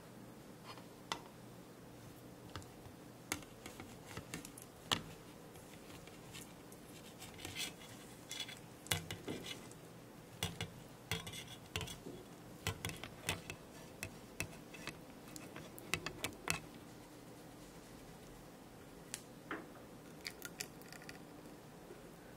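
Silicone spatula stirring dark chocolate and butter in a small stainless steel saucepan over a double boiler: irregular light clicks and scrapes against the pan, thickest in the middle and thinning out near the end as the chocolate melts smooth.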